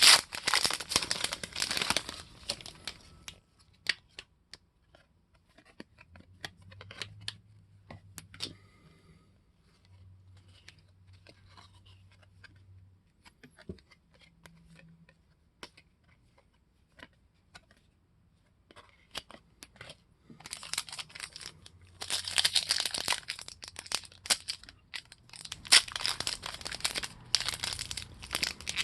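Trading card pack wrappers being torn open and crinkled by hand, in a loud bout at the start and another dense stretch from about two-thirds of the way through. In between it is quieter, with only scattered light clicks and rustles as cards are handled.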